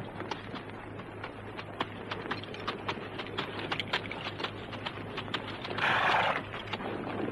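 Horses' hooves clip-clopping in many irregular hoofbeats, several a second, with a short, louder rush of noise about six seconds in.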